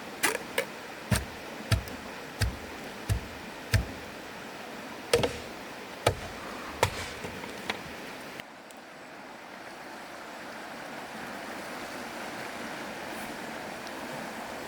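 About a dozen sharp knocks with a dull thud to each, roughly one every half second, over steady rushing river water. The knocks stop about eight seconds in and only the water noise goes on.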